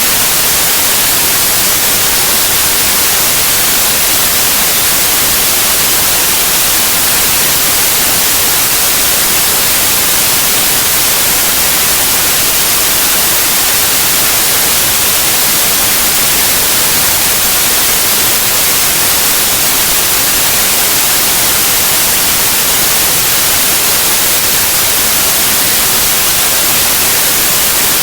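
White noise: a loud, steady, even hiss with most of its energy in the high frequencies, unchanging throughout.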